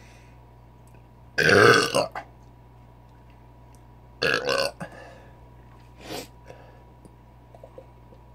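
A man belching after gulping malt liquor: a long, loud burp about a second and a half in, a second loud burp around four seconds, and a weaker short one a couple of seconds later. A few faint ticks follow near the end.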